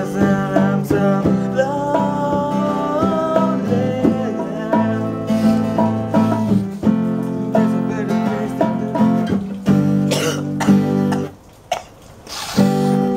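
Acoustic guitar being played, a run of ringing notes and chords. It stops briefly about two seconds before the end, then comes back in with a loud chord.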